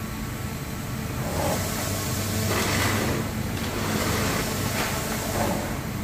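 UV printer carriage running along its rail: a steady smooth hum at first, then from about a second in a louder grinding rumble that swells and fades several times. The rumble comes from a worn carriage roller bearing that should be replaced.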